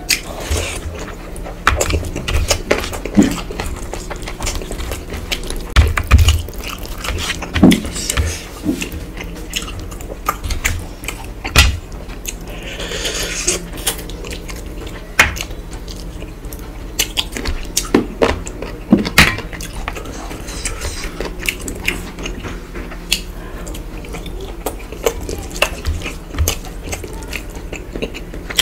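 A person eating rice and curry by hand: wet chewing and mouth smacks, with scattered clicks and scrapes of fingers working the food on a steel plate.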